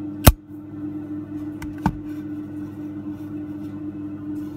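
Zippo lighter's hinged chrome lid snapping shut with one sharp metallic clack just after the start. About a second and a half later come two lighter clicks, over a steady background music drone.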